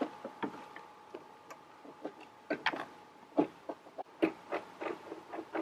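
Irregular knocks and clicks of a hanging kids' ninja-warrior training ladder being handled and climbed against the van, over a faint steady hum.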